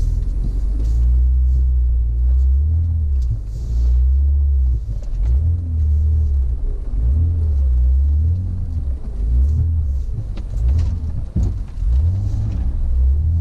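Honda Ridgeline's V6 engine heard from inside the cab, its pitch rising and falling again and again as the truck creeps along a rutted dirt trail, over a low rumble. A few knocks come from the truck near the end.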